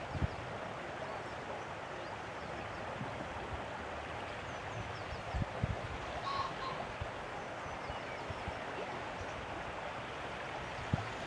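Steady wash of seawater in a rocky sea inlet. Faint bird chirps come about halfway through, and there are a few brief low thumps.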